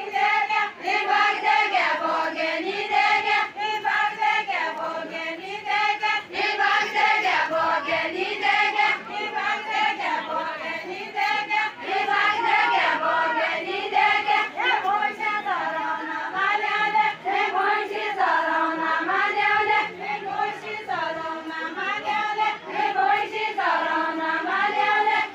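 A group of women singing a Deuda folk song together, unaccompanied, the voices holding a simple repeating melody that rises and falls phrase after phrase.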